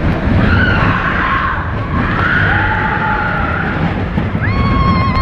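Expedition Everest roller coaster train running on its track, a loud steady rumble with wind rushing over the microphone. A rider's high, held scream comes in near the end.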